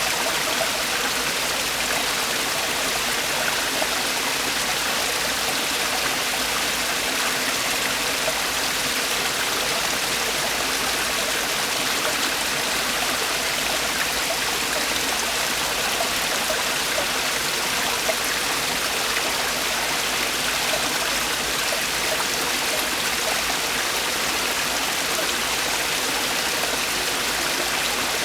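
Mountain stream water falling and splashing over rocks in a steady rush, with no change in level.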